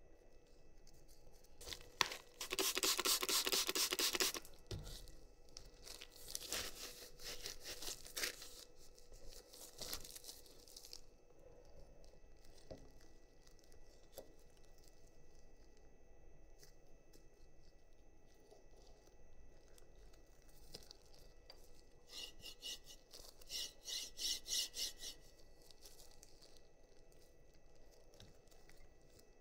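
Workbench handling sounds from assembling a 3D printer kit. About two seconds in there is a loud rasping tear lasting nearly two seconds, followed by shorter rasping bursts a few seconds later and again about twenty-two seconds in, with small clicks and quiet handling of parts in between.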